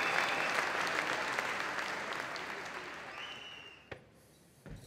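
Audience applauding, the clapping dying away over about four seconds. A single sharp click and then a short low thump come near the end.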